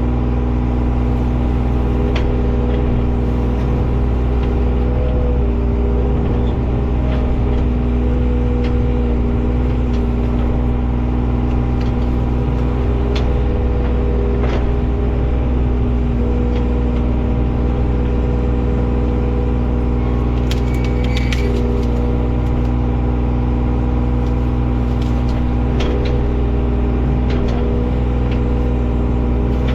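John Deere 35G mini excavator's diesel engine running steadily at working speed, with scattered knocks and clatters as the machine moves brush and concrete debris.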